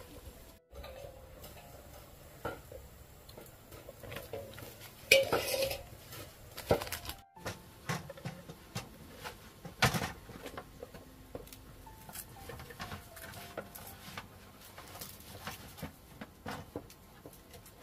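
A knife working on a large fish laid on a metal tray: scrapes, taps and metal clinks, with a louder clatter about five seconds in.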